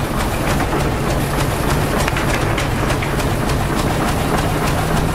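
Heavy dump truck's diesel engine running with a steady low drone, under a rapid, irregular clatter of rattling.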